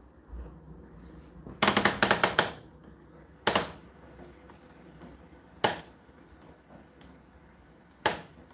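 Sharp knocks inside an Indesit IDC8T3 condenser tumble dryer's turning drum: a quick rattling run of about eight knocks, then single knocks roughly every two seconds, like hard parts of the laundry hitting the drum as it tumbles.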